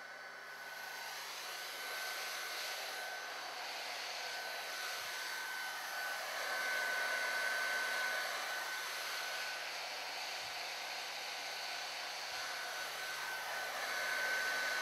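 Heat gun with a reflector nozzle blowing hot air in a steady rush with a thin high whine, shrinking a heat-shrink molded boot down onto a cable. It grows louder over the first couple of seconds, then holds steady.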